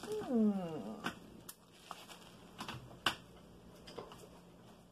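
A single short cry that falls steadily in pitch for just under a second, followed by a few light clicks and taps of paper-wrapped packages being handled on a table.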